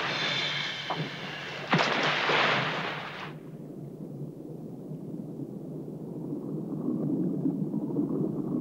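Water splashing and hissing at the surface as scuba divers go over the side of a small inflatable boat, with a sudden loud splash about two seconds in. About three seconds in it cuts to a low, muffled underwater rumble of a diver's regulator exhaust bubbles.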